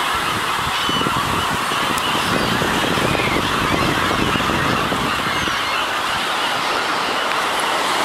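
A large flock of gulls calling over one another as they feed in a frenzy over the water, over the steady wash of surf.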